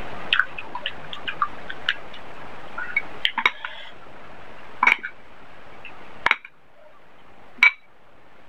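A metal serving spoon clinking against a glass bowl and the plate as chicken curry is spooned onto rice. It makes several sharp separate clinks, the loudest near the end, and before them come softer quick clicks as rice is worked by hand on the plate.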